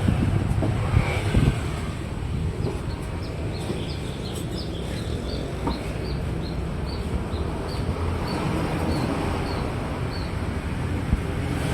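Truck engine and road noise, a steady low rumble while driving. A run of short high chirps repeats about three times a second through the middle.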